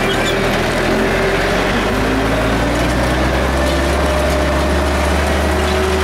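Tractor engine running steadily under load, pulling a multi-bottom moldboard plough through dry soil.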